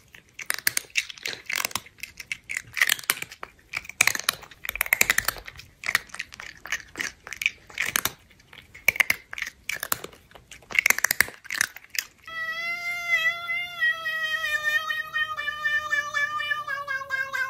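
A cat chewing and crunching food, with irregular wet crackles and clicks, for about twelve seconds. It then gives way to one long, slightly wavering high-pitched wail that lasts to the end.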